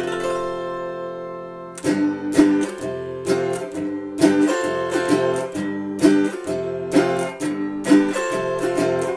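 Autoharp: one chord strummed and left ringing, then from about two seconds in a steady rhythmic strumming of chords, accented about once a second.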